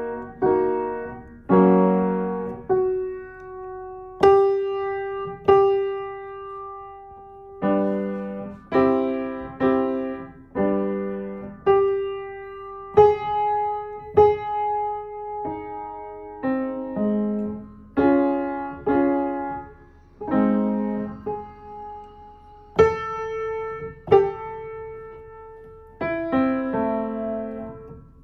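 Piano played slowly, chords and single notes struck one at a time in the middle register, each left to ring and fade before the next. Here and there a single note is repeated and held between groups of chords.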